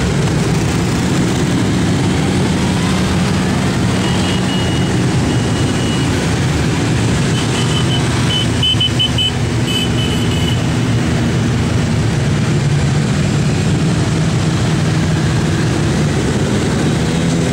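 Many motorcycle engines running as a long column of motorcycles rides past, a steady, loud, continuous mix of engine sound.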